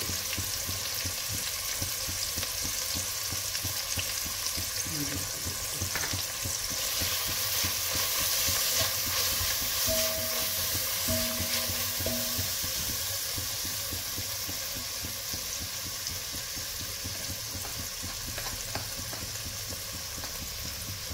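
Chopped onion, capsicum and carrot with ground masala sizzling in hot oil in an enamel pot while being stirred with a plastic spatula. The steady sizzle grows louder about a third of the way in, around when the mix is stirred.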